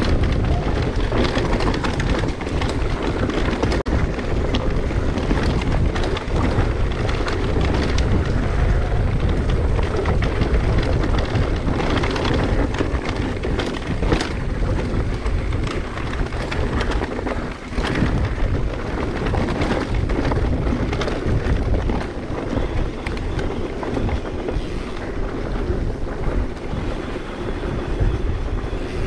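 Wind rushing over the microphone of a mountain biker's camera while riding a trail, with frequent knocks and rattles from the bike going over rough ground.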